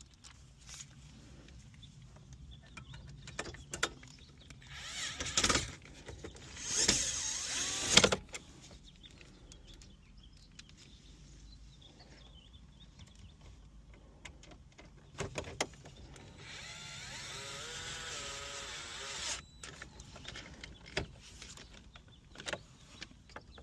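Cordless drill-driver with a Phillips bit running in spurts to drive mounting screws in until snug. Two short runs come about five to eight seconds in, and a steadier run of about three seconds comes past the middle, with small clicks and knocks of handling between them.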